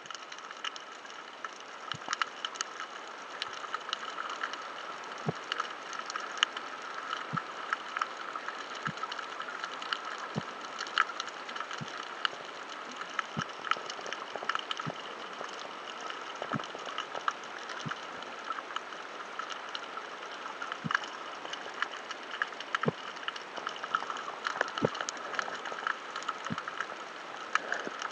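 Underwater ambience: a steady hiss with irregular sharp clicks and crackles.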